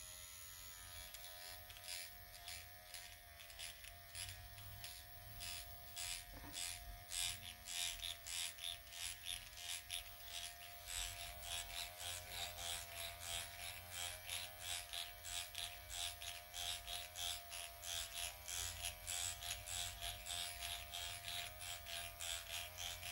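Dr. Pen electric microneedling pen running with a steady motor whine, its needle cartridge drawn across the skin in a rhythmic scratchy swish about two or three times a second.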